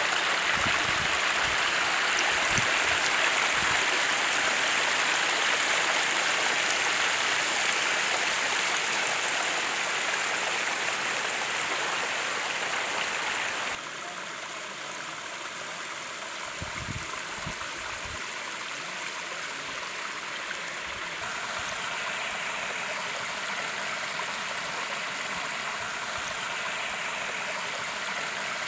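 Steady rush and splash of water spilling down a tiered rock waterfall into a pond. It drops abruptly in loudness about halfway through, then rises a little again.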